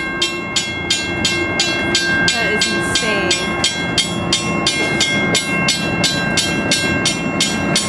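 Bridge warning bell ringing continuously with rapid, even strikes, about three a second, each leaving a steady ringing tone: the traffic alarm that sounds while the drawbridge leaf is raised.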